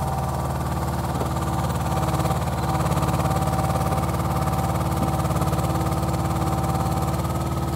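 Truck engine running steadily to power the hydraulics of a truck-mounted loader crane as it lifts a ground-protection plate in its gripper, with a steady whine over the engine hum. It grows a little louder about two and a half seconds in.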